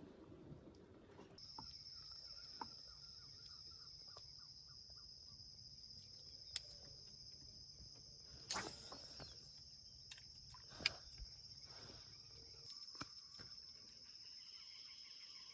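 Insects trilling steadily on two high pitches, starting about a second in, with a bird chirping briefly early on. A few sharp clicks sound over it, the loudest about eleven seconds in.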